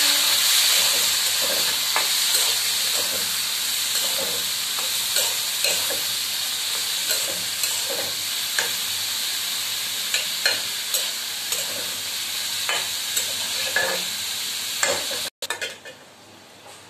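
Diced potato and eggplant sizzling in hot oil in a karahi, with a spatula scraping and knocking against the pan as they are stirred. The sizzle slowly weakens, and the sound drops suddenly about fifteen seconds in.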